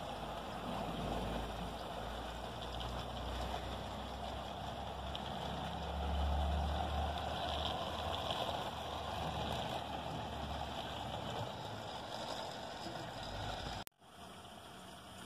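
HO-scale model train's cars rolling over a metal truss bridge: a steady low rumble with rolling noise, loudest about six seconds in, over trickling water from a small garden stream. The sound breaks off abruptly near the end and comes back quieter.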